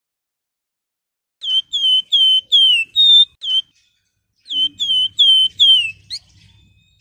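Javan fulvetta (wergan Jawa, 'flamboyan') singing: two runs of short, clear, downslurred whistles, about six notes and then five, with a short pause between them. The last note rises sharply.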